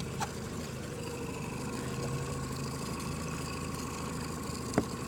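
Boat engine idling with a steady hum, with a single sharp knock near the end.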